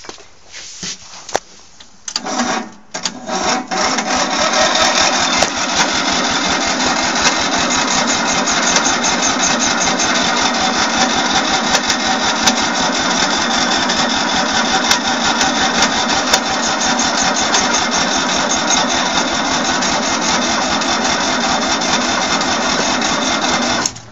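The electric starter cranks the 1997 Craftsman tractor's 19.5 HP V-twin engine, a steady fast chugging that goes on for about twenty seconds without the engine catching. It cuts off abruptly when the key is released. A few clicks and knocks come before the cranking starts.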